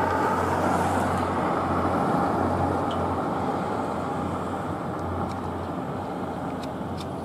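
Motor vehicle noise: a steady low engine hum under a broad rush of road noise that slowly fades.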